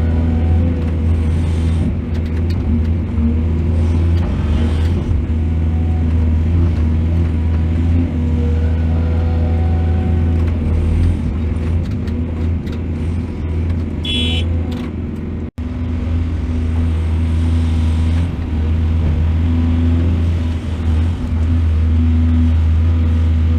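Heavy diesel machinery engine running steadily with a deep drone. A short high squeal comes about 14 seconds in, and the sound cuts out for a split second just after.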